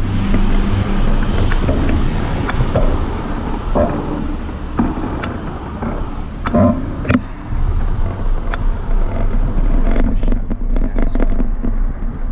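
Bicycle rolling over interlocking paving stones, with a steady rumble and hiss of wind on the camera microphone and scattered clicks and rattles from the bike. About ten seconds in, the hiss drops away suddenly and the rumble goes on.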